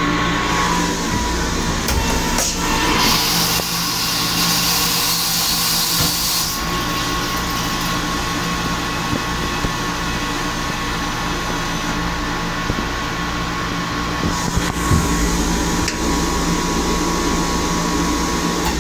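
Commuter rail car toilet flushing: a hiss of rinse water starts about two and a half seconds in and lasts about four seconds, over the steady rumble of the moving train car.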